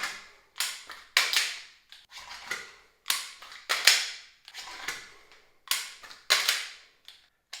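Pistol magazine changes done at speed: about a dozen sharp metallic clacks at uneven intervals as magazines are ejected and fresh ones slammed home.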